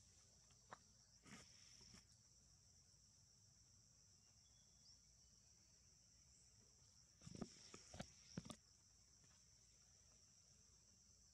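Faint, steady, high-pitched drone of insects such as crickets, with a few short clicks and rustles about a second in and a louder cluster of them about seven to eight and a half seconds in.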